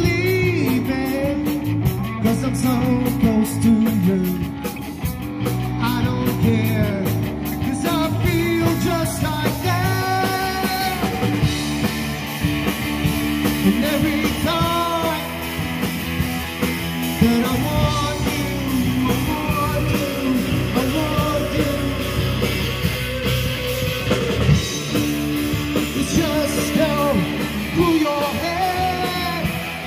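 Rock band playing live with a singer, cymbals crashing through the first several seconds.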